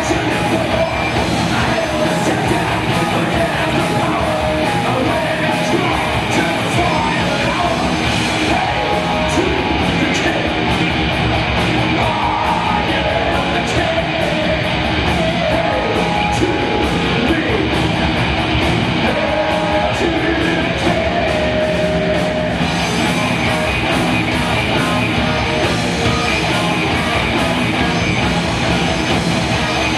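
Heavy metal band playing live: distorted electric guitars and fast drums with sung and shouted vocals, loud and unbroken.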